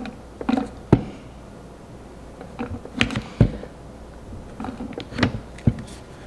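Cheese grated back and forth by hand on the shredder blade of a plastic VEKAYA vegetable chopper, held in its plastic safety grip: irregular plastic clicks and knocks, a few with a dull thump, with short scraping strokes.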